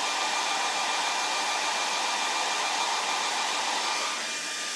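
Handheld hair dryer running steadily, a loud rushing airflow with a steady high motor whine, fading as it is switched off at the very end.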